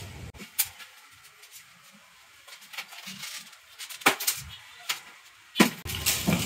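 Packaging being worked off a boxed refrigerator: scattered sharp clicks and snaps with faint rustling, the loudest snap a little before the end.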